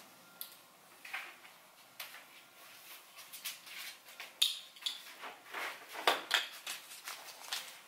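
Rustling and small clicks and knocks as a paper shopping bag and the things in it are handled, sparse at first and busier from about three seconds in.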